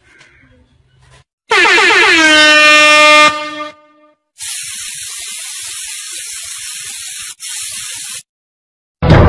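A loud horn-like tone slides down in pitch and then holds for about a second. It is followed by about four seconds of steady hiss, broken briefly near the end.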